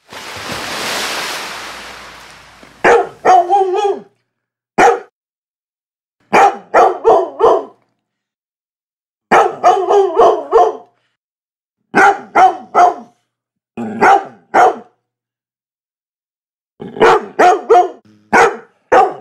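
A rushing noise fades out over the first two to three seconds. Then a Labrador barks in about seven quick bursts of one to six sharp barks each, with silent gaps between the bursts.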